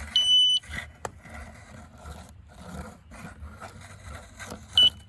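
Handheld metal detector beeping as it passes over a nail in a wooden barn beam: a high tone about half a second long right at the start and a shorter one near the end, with light scraping over the wood in between.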